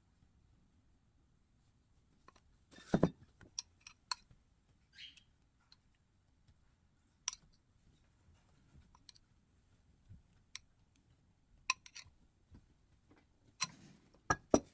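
Scattered light clicks and knocks of a spoon or utensil against a dish while trifle layers are spooned in, the loudest about three seconds in and a few more near the end.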